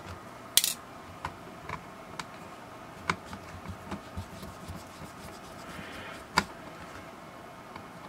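Small Phillips screwdriver working the tiny screws in the plastic back case of a Texas Instruments BA II Plus calculator: faint scratching and rubbing with scattered light clicks, a short scrape near the start and the sharpest click about six seconds in.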